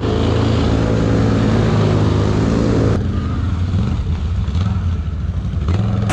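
A Can-Am (BRP) Outlander 1000 ATV's V-twin engine running hard under load as the quad ploughs through deep muddy water, with a loud rush of spraying water. About three seconds in, the sound changes abruptly to a lower, steadier engine note with less splash, as the quad wades slowly through shallower water.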